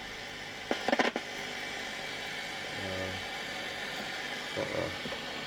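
Home-built Charles Kitchen regenerative receiver switched on and playing steady hiss and buzz through its speaker; the buzz is interference from a solar-power inverter. A cluster of sharp clicks about a second in.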